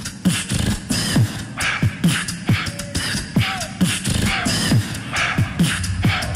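Beatboxing through a loop station: a steady groove of mouth-made kick drums, each dropping in pitch, under hissing snare and hi-hat sounds, with a couple of short sliding hummed notes near the middle.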